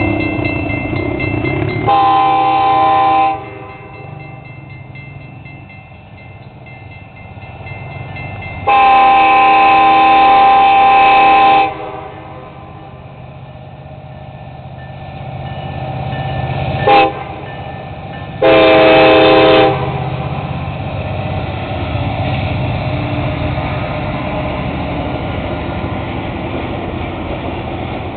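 Alaska Railroad Denali Star passenger train's locomotive horn sounding for the grade crossing as the train approaches: a blast, a longer blast, a brief toot and a final blast, each several notes at once. Then the steady rumble of the train's cars rolling over the crossing.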